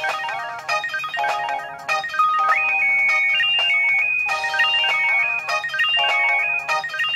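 A Samsung ringtone playing on a ZTE Z222 phone: an electronic polyphonic tune, a high melody over chords, with a short phrase that repeats about every four seconds.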